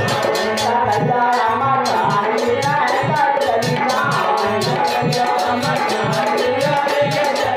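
Instrumental music of a Hindi devotional bhajan: a steady drum beat about twice a second under fast ticking percussion and a wavering melody.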